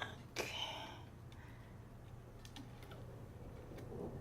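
A few scattered faint clicks and small handling knocks at the reel-to-reel tape deck as the tape is set up, over a steady low hum.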